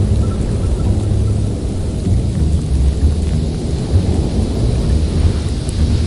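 Thunderstorm: a continuous low rumble of thunder over a steady hiss of heavy rain.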